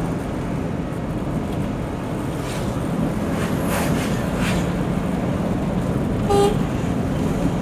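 Steady engine and road noise of a moving car, with a short horn beep about six seconds in.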